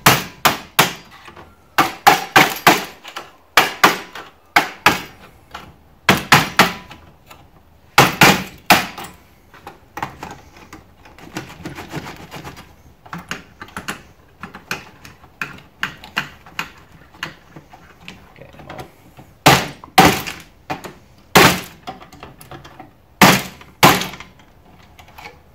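Hammer blows on a CRT TV circuit board, knocking a chip off. Sharp strikes come in quick runs of two to five, loudest near the start and again near the end, with lighter taps in between.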